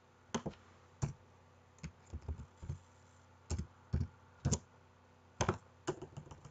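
Keys tapped on a computer keyboard: about a dozen sharp clicks at irregular spacing, some in quick pairs, like slow, hesitant typing.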